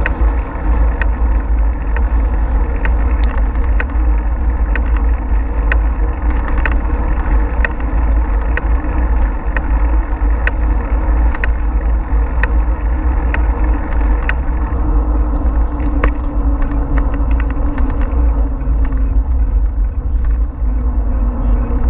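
Wind buffeting a bicycle-mounted GoPro's microphone while riding along a paved trail: a loud, steady rumble with tyre and road noise, dotted with frequent small sharp clicks and rattles.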